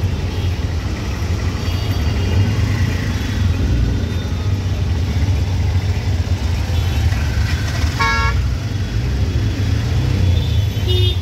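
Auto-rickshaw engine running with a steady low rumble, heard from inside the open cab amid traffic noise. A vehicle horn honks once, briefly, about eight seconds in, and a fainter high beep sounds near the end.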